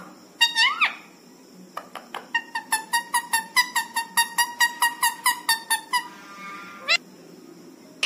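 Rose-ringed parakeet whistling: a short rising-and-falling whistle, then a fast, even run of repeated piping notes, about five a second, for nearly four seconds, ending with a quick upward glide.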